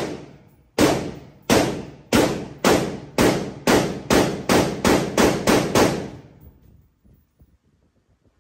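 Hi-Point 995 9mm carbine fired in a rapid string of about thirteen shots, speeding up as it goes, each shot leaving a short echoing tail. The shots stop about six seconds in.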